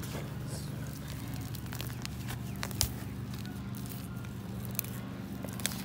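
Walking in plastic slide sandals on a concrete path, with scattered sharp clicks and scuffs of the steps, the loudest about three seconds in. A steady low hum runs underneath.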